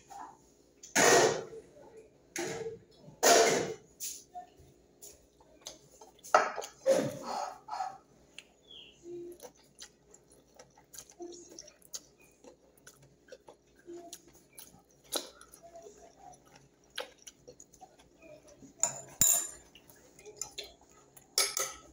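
Mealtime sounds of someone eating by hand from a glass bowl: scattered small clinks and knocks of the dish on the table, with a few louder short bursts of handling noise.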